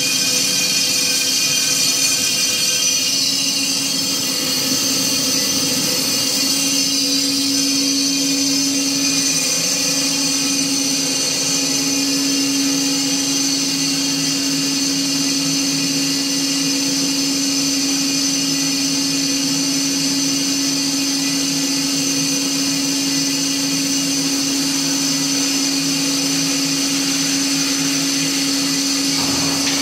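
BOMAR Workline 610.450 DGH metal-cutting band saw running steadily as its blade cuts through metal stock, a continuous mechanical hum with a high, steady whine.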